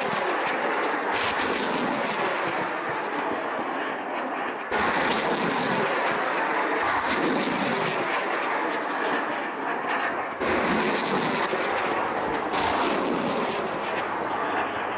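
Armoured vehicles firing on a military training range: a continuous heavy rumbling roar, jumping louder with sudden blasts about one, five, ten and twelve seconds in.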